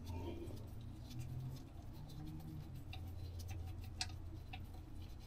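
Faint, scattered small clicks and scratches of fingers unscrewing a loosened oil drain plug from the oil pan, with one sharper click about four seconds in, over a low steady hum.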